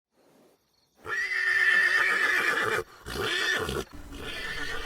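A horse whinnying: a long neigh starting about a second in, then a shorter one, followed by a quieter call near the end.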